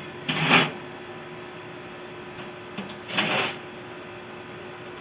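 Two short bursts of a handheld power driver, each about half a second long and nearly three seconds apart, with a faint click just before the second, while a microwave oven is taken apart.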